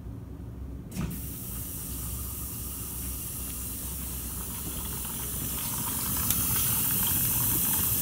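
Whirlpool WDT790SLYM3 dishwasher filling with water at the start of a wash cycle: a click about a second in, then a steady hiss of water running in, growing louder in the last couple of seconds.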